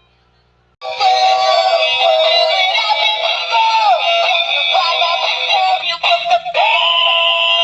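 Toy telephone's small speaker playing an electronic song with a synthetic singing voice, starting about a second in with a short break near six seconds. Thin and tinny, with no bass.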